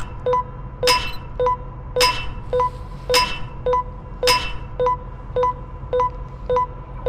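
Japanese railway level-crossing warning bell ringing its repeated "kan kan" ding, about two dings a second. Over the first four seconds or so, a louder, ringing strike lands on about every other ding, then drops out while the plain dings go on.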